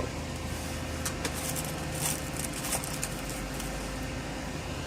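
A steady low hum, like a fan or air conditioner, with a cluster of faint, light scratching ticks about one to three seconds in.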